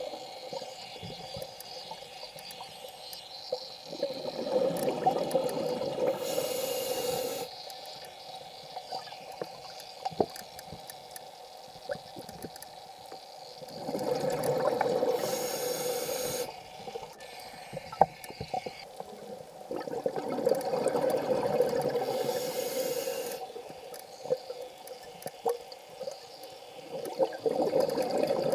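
Scuba diver breathing through a regulator underwater: four breaths, each a burst of exhaled bubbles lasting a few seconds with a short hiss near its end, over a steady hum and scattered sharp clicks.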